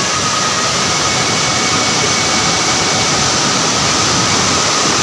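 Uski waterfall rushing: a loud, steady, unbroken noise of falling water.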